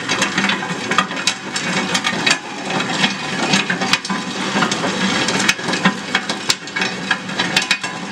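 Locomotive 1000 nut-cracking machine running with a steady motor hum while tropical almonds are crushed between its cone and cracking chamber, the husks and shells cracking and clattering in many irregular clicks.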